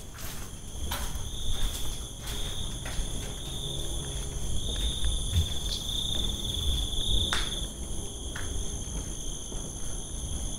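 A chorus of insects chirring steadily, several high-pitched tones holding at once. Scattered light knocks and scuffs, like footsteps, sound beneath it.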